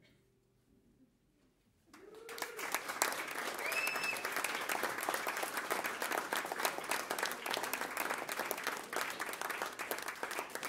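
A small audience breaks into applause about two seconds in, after the last notes have faded, with a couple of short cheers early in the clapping.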